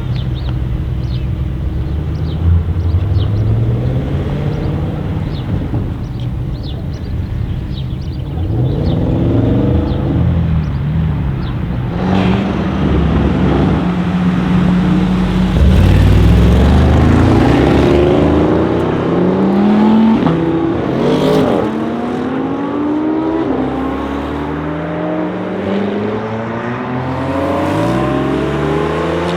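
Audi RS7 C8's twin-turbo V8 through a loud custom exhaust: a low rumble at first, then revving and accelerating hard. In the second half the pitch climbs in a run of rising sweeps, each dropping back at a gear change.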